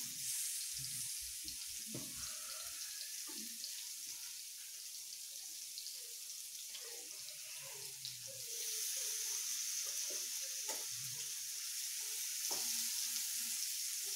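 Slices of beef sizzling on the hot plate of an electric raclette grill, a steady hiss that grows louder about eight seconds in as more meat is laid on. A few light clinks and knocks of forks and plates come through.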